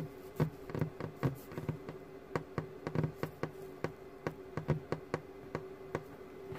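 Fingers tapping and drumming on a wooden workbench, about three light knocks a second, over a steady low electrical buzz.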